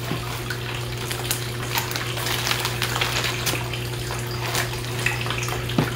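Plastic packaging crinkling and rustling in short irregular crackles as a wrapped item is handled and opened, over a steady low hum and hiss.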